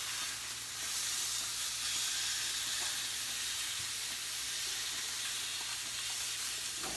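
Seared beef roast sizzling steadily in a hot Instant Pot's inner pot, an even hiss with no breaks.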